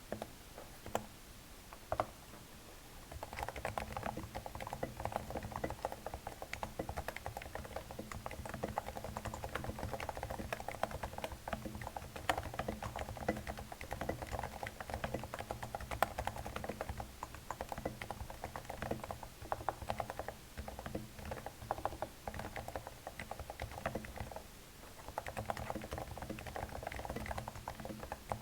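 Cooler Master Novatouch TKL keyboard with lubed and silenced Topre electrostatic-capacitive switches being typed on. A few single keystrokes come first, then steady, fast typing from about three seconds in, with a brief pause near the end.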